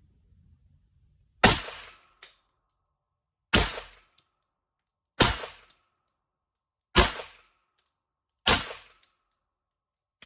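Five single shots from an HK VP9 9mm pistol, fired slowly about one and a half to two seconds apart, each with a short ringing tail.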